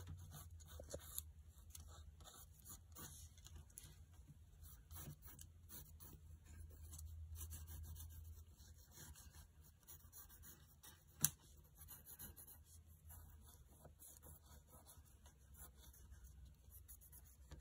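Faint scratching of a pencil drawing on paper, over a low steady hum, with one sharp click about eleven seconds in.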